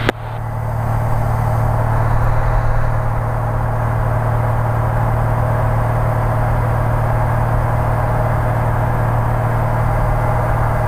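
Steady drone of a Cessna L-19 Bird Dog's six-cylinder Continental O-470 engine and fixed-pitch propeller in cruise, heard inside the cockpit. A click at the very start, then the drone swells back up over about the first second.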